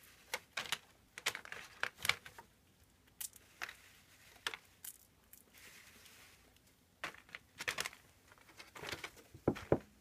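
Brown paper bag rustling and crinkling in irregular bursts of sharp crackles as a gray squirrel rummages inside it.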